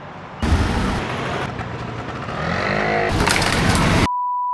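Short, abruptly cut snippets of noisy street or traffic sound, with a brief pitched glide among them. Near the end a single steady high beep tone cuts in and holds.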